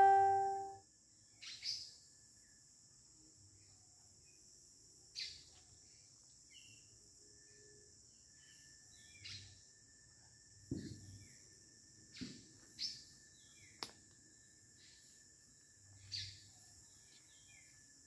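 Forest at dusk: a steady high drone of insects, with scattered short bird chirps and calls. A ringing tone fades out in the first second.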